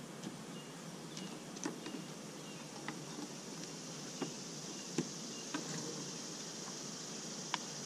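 Honeybees buzzing steadily around an open hive, with a handful of light clicks and knocks scattered through. A high, steady hiss joins about halfway in.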